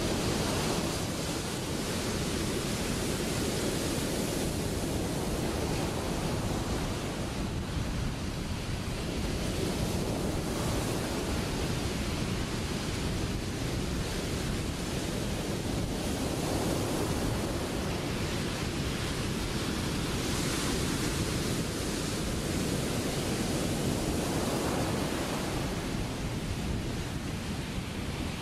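Ocean surf: a continuous rush of breaking waves and whitewater, swelling and easing every few seconds.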